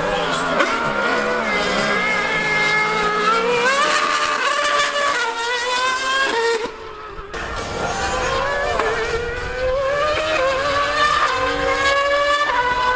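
Formula One car's 2.4-litre V8 screaming at high revs as it launches and accelerates, its pitch climbing in steps through the gear changes, alongside a Yamaha R1M superbike. The sound drops away briefly about halfway through, then climbs again.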